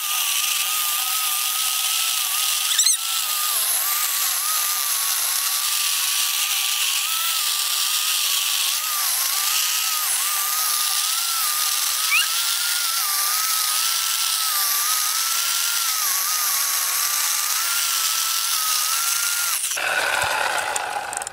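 WORX WG305 14-inch corded electric chainsaw cutting down through a birch log under load: a steady whine whose pitch wavers slightly as the chain bites. Near the end the saw comes out of the cut and the sound drops away.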